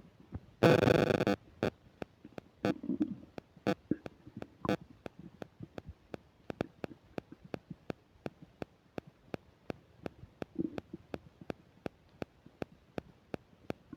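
Human stomach gurgling during digestion of a meal, with a couple of low, short gurgles, one about three seconds in and one near the end. A loud noisy burst comes about a second in, and a steady run of sharp clicks, about three or four a second, runs through it: the microphone's static crackle.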